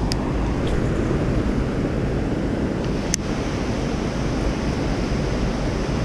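Steady rushing of river water below a dam spillway, with a single sharp click about three seconds in.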